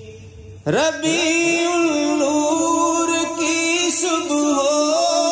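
A singer performing an Urdu naat, a devotional song in praise of the Prophet, starting a new verse after a short pause with a long held note that wavers and turns.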